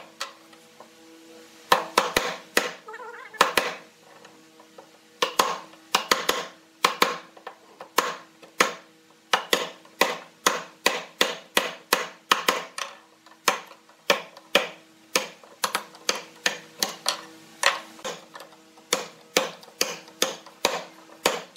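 Wooden-handled chisel being struck over and over, chopping a mortise into a wooden board: dozens of sharp knocks, often in quick pairs, with a short pause about a second in.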